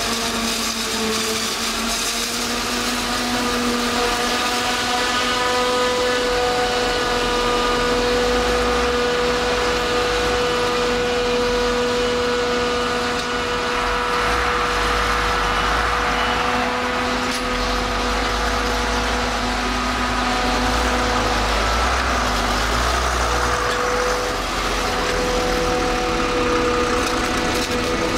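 Self-propelled forage harvester chopping maize and blowing it into a trailer, with a tractor's engine running alongside. It makes a steady machine drone with a high, steady whine, and a deeper engine rumble swells and fades a few times.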